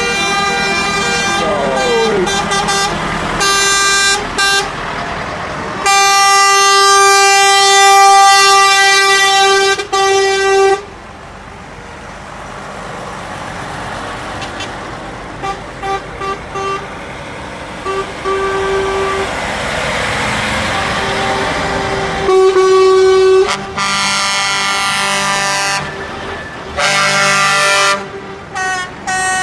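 Truck air horns sounding one after another as convoy trucks pass: long held notes, one lasting about five seconds, then short toots and a two-tone chord near the end. One horn drops in pitch early on as it goes by, and a truck engine runs in the quieter stretch between the horns.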